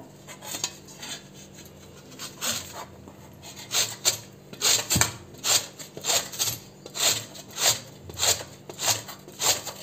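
A peeled raw green mango being rubbed across a round stainless-steel grater that sits in a steel bowl. The rasping is faint at first, then from about two seconds in comes as a stroke roughly every two-thirds of a second.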